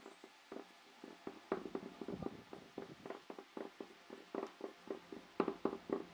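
Wooden leg being screwed by hand onto a screw in a curved wooden base: an irregular run of short clicks and creaks as the wood turns on the screw threads and the hand regrips the leg, with a few louder knocks about a second and a half in and again near the end.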